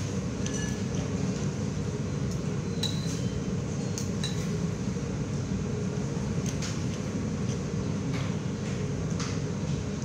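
Metal spoon and fork clinking and scraping against a plate during a meal: scattered light clinks, a few with a short high ring, over a steady low background hum.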